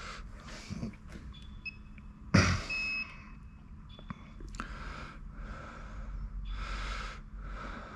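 Handling of an insulation tester on a high-voltage battery module: a sharp knock about two and a half seconds in, then a short high electronic beep from the tester, with fainter beeps before and after, over soft, regular breathing.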